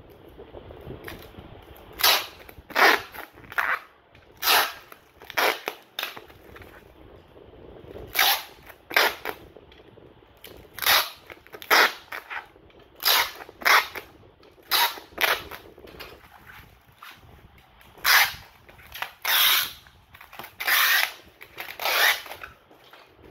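Brown packing tape being pulled off the roll in a string of about twenty short, loud, screechy rips, coming in irregular bunches.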